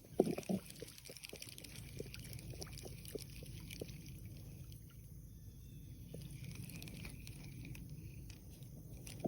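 Fishing reel being cranked in to recast: soft irregular clicks over a low steady rumble, with a sharper knock about a quarter second in.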